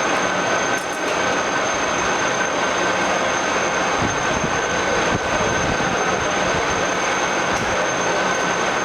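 All-geared radial drilling machine running steadily: a constant mechanical noise from its geared head, with a steady high-pitched whine over a low hum.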